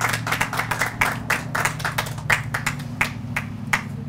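Scattered hand clapping from a small crowd, many irregular claps that thin out and stop near the end, over a steady low hum.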